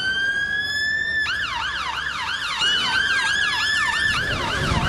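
Emergency vehicle sirens sounding together. A long, slowly rising tone gives way about a second in to a fast yelping rise-and-fall, about three sweeps a second, with a second siren holding a long rising tone over it.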